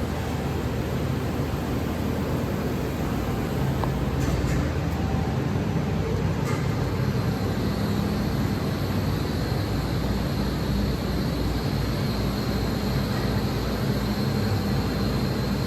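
Haas EC1600 horizontal machining center running with a steady mechanical hum, two faint clicks, and a high-pitched whine that comes in about halfway through and holds.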